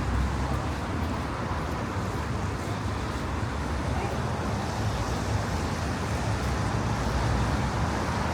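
Steady road traffic noise: a low, even rumble of passing cars and tyres on the street.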